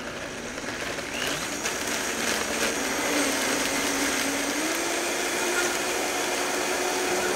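Countertop blender running, pureeing a spinach-and-almond romesco sauce. It starts slow and gets louder over the first few seconds, and its motor pitch steps up about two thirds of the way through as the speed is raised.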